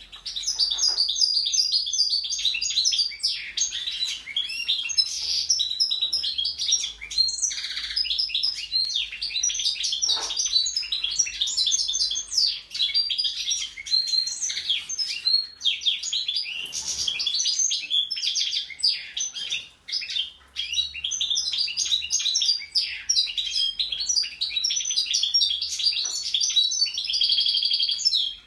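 Caged European goldfinch singing a long, continuous song of rapid twittering trills and chirps, with a couple of brief pauses about two-thirds of the way through.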